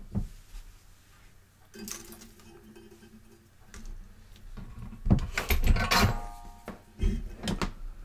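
Handling noises on a soldering bench: scattered knocks and clicks, then a loud clatter of metal tools with a brief metallic ring about five to six seconds in, as the soldering iron and solder are picked up to tin a stripped wire.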